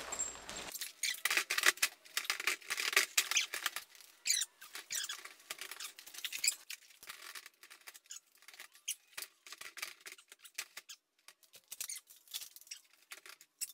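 Rapid, irregular clicks, scrapes and rattles of a flat-screen TV being lifted and hooked onto a metal wall-mount bracket, thinning out over the last few seconds.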